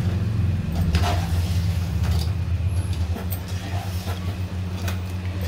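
A metal spatula stirring chicken and yogurt masala in a coated pot, with a few scrapes and clinks against the pot. A steady low hum runs underneath and is the loudest sound.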